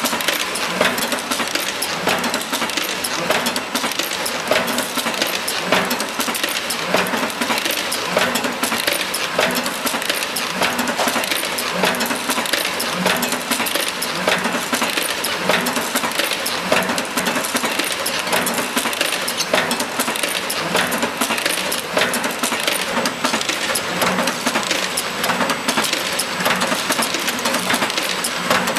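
Dimter ProfiPress high-frequency gluing press line running: a continuous clatter of many small metallic clicks and knocks over steady machine noise.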